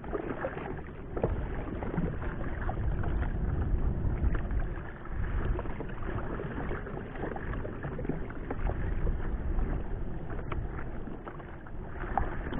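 Sea water lapping and sloshing against a small paddled fishing boat, a steady uneven wash with a few faint knocks.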